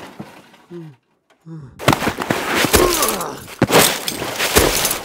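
Battle sound effects: after a quiet first second and a half, a run of sharp gunshot-like cracks and crashes, with a falling whine among them.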